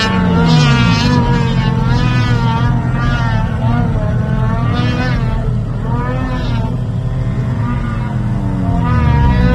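Snowmobile engine running hard as the sled climbs a steep slope, its pitch rising and falling with the throttle; the revs drop and pick up again near the end.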